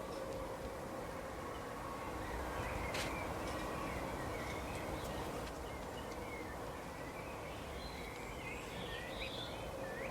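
Woodland ambience: a steady background hiss with a faint steady hum, and scattered short bird chirps, more of them near the end. A single sharp click about three seconds in.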